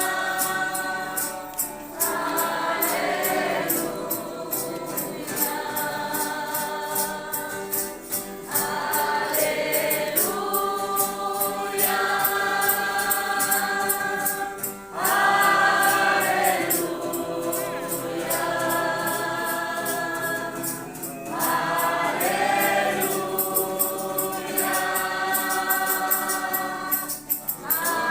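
Church congregation singing a hymn together in long held phrases, with a steady high percussion beat underneath.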